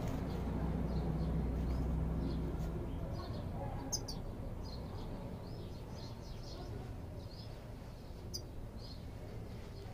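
European goldfinches giving short, high twittering calls scattered throughout, over a low steady hum that fades out after about three seconds. Two sharp ticks, about four and eight seconds in.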